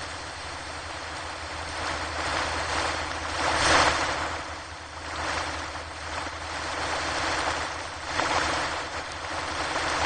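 Ocean surf breaking on a shore: a continuous rushing wash that swells and ebbs in surges every few seconds, loudest a little over a third of the way in and again near the end.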